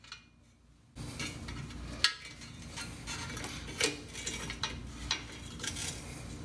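Scattered metal clinks and scraping as a Shovelhead's chrome exhaust pipe is worked loose from the cylinder head and a wrench works its rear bracket bolt. The clinks come as a handful of sharp ones over a low rustle of handling.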